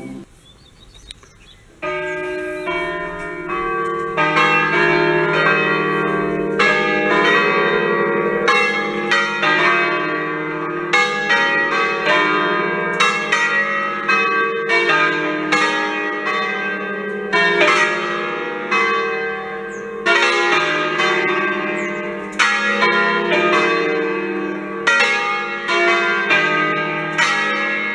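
Full peal of five bronze church bells tuned to a slightly flat E-flat, cast by Achille Mazzola in 1951. The bells swing in full and strike in continuous overlapping rounds, starting about two seconds in after a brief quiet.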